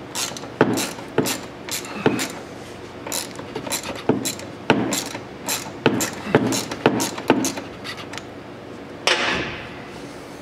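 Socket ratchet clicking in short uneven strokes, about two a second, while backing out the oil drain plug of an ATV engine. A brief rush of noise follows about nine seconds in.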